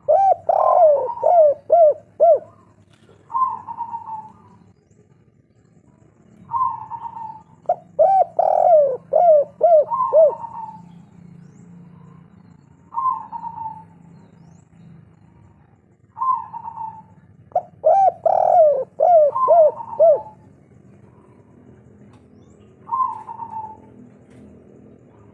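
Spotted dove (tekukur) singing its 'kuk 3' song: three bouts of rapid rolling coos, one near the start, one about eight seconds in and one about eighteen seconds in, with single coos spaced between them.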